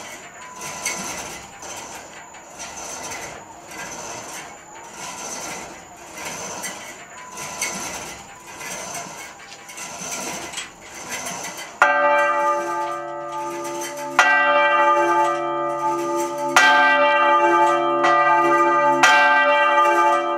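Sigismund III Vasa's large church bell swinging in its tower. First comes a quieter rhythmic clatter, pulsing about once a second, then about twelve seconds in the clapper starts striking: four loud strokes about two and a half seconds apart, each tone ringing on into the next.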